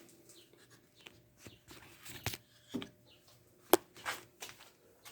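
Scattered light taps, clicks and rustles of someone moving about and handling tools, with one sharp click nearly four seconds in.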